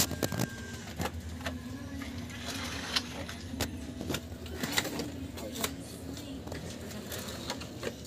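Sandpaper worked by hand along the edge of a wooden table that has been patched with body filler, giving irregular scraping strokes and small clicks over a steady low hum.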